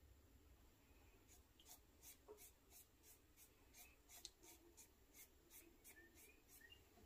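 Faint, quick strokes of an inked drawing tool scratching across paper, about two or three a second, as radiating firework lines are drawn.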